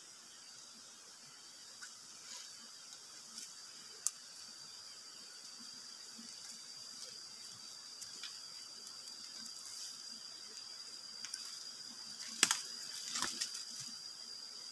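A steady, high-pitched insect drone, with light scattered rustles and clicks from handling in dry leaf litter and twigs, and two sharper knocks near the end.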